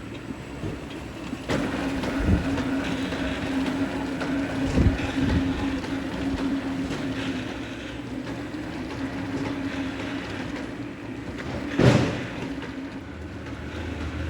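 A machine running steadily with a hum, and a few knocks along the way; the loudest knock comes about twelve seconds in.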